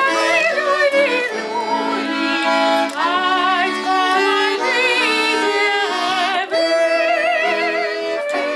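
Accordion music in a traditional folk style: held chords under a wavering melody line with vibrato, moving through a series of stepped notes.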